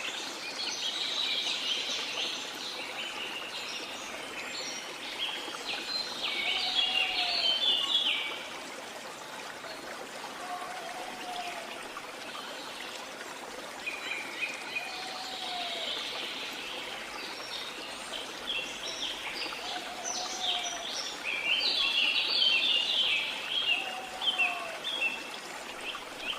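Rainforest ambience: a steady rush of water under bouts of busy, high bird chatter, with a short, low call repeating every three to four seconds.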